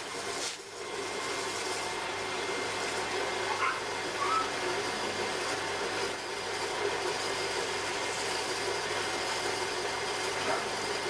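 Potter's wheel running with a steady mechanical hum as the spinning wheel head turns.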